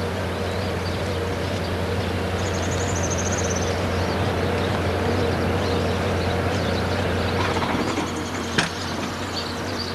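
A vehicle engine idling with a steady low hum. A brief high trill comes about two and a half seconds in, and a single sharp click comes near the end.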